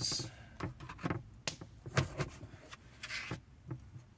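Kitchen knife slicing a lime and knocking against a cutting board: a series of short taps about every half second, with a brief scraping sound about three seconds in.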